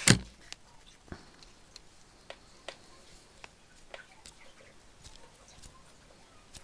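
A sharp knock, then scattered light clicks and taps of metal as a partly disassembled aluminium bicycle pedal and a screwdriver are handled.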